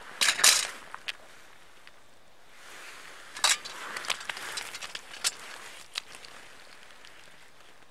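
Handling noises on the ice: a quick cluster of sharp scrapes and knocks about half a second in, then jacket rustle and scattered clicks as a caught trout and a metal ice scoop are handled at the hole.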